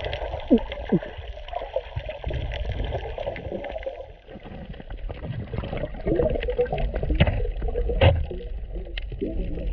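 Muffled underwater sound of moving water and bubbling, heard through a submerged camera, with two sharp knocks near the end.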